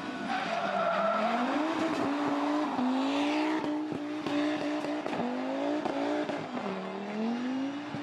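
Audi Quattro rally car's turbocharged five-cylinder engine revving hard through the gears, its pitch climbing and dropping again several times with short sharp cracks at the shifts. The tyres squeal briefly in the corners.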